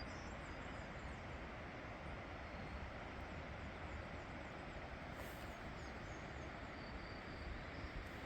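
Steady, even outdoor rush with faint, high bird chirps coming and going over it.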